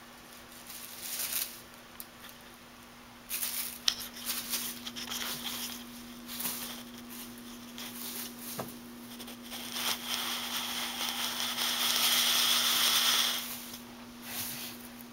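Party streamers rustling and crinkling in irregular bursts as a kitten pounces and rolls in them, with a long, busier stretch of crinkling about two thirds of the way in.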